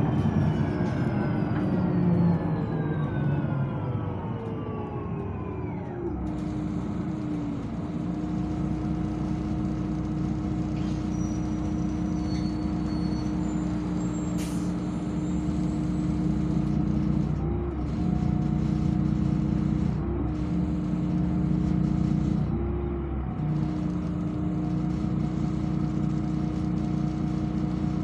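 Solaris articulated city bus heard from inside the cabin: a whine falling in pitch over the first six seconds as the bus slows, then a steady hum and rumble that wavers briefly a few times.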